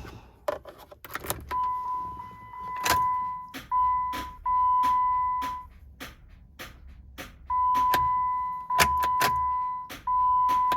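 A 2008 Jeep Wrangler that won't crank on a dead battery, even with a jump starter clipped on: rapid irregular clicking from its electrical system, with a steady high-pitched electronic beep that comes and goes in several long stretches. This is what a battery too weak to turn the starter sounds like; the battery later proved to be dead.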